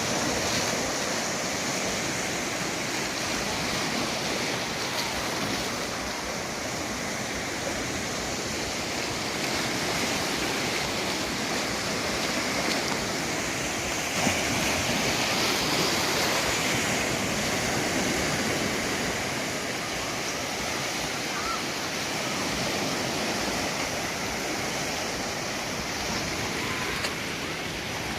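Sea surf washing steadily onto a sandy beach, a continuous rushing wash that swells a little about halfway through.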